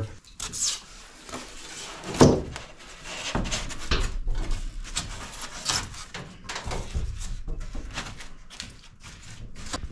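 Grooved expanded-polystyrene foam insulation board being bent and pressed by hand into a curved metal ceiling: irregular crackling, creaking and rubbing of the foam, with a louder knock about two seconds in. The cut grooves let the rigid board flex to follow the curve.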